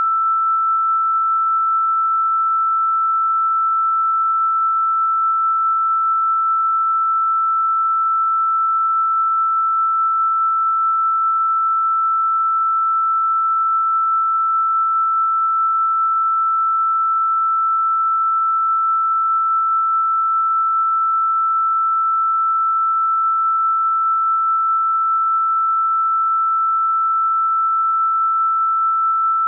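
A single electronically generated pure sine tone held at one steady high pitch, with no overtones and no change in loudness: a continuous 'healing frequency' tone.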